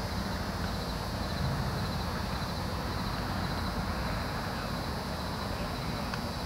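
Steady outdoor ambience at a ballfield at night: an even low rumble and hiss with no distinct events, and a faint high chirping that repeats evenly.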